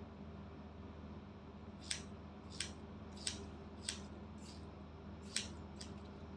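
Hair-cutting scissors snipping through hair: seven short snips starting about two seconds in, roughly one every two-thirds of a second, over a steady low hum.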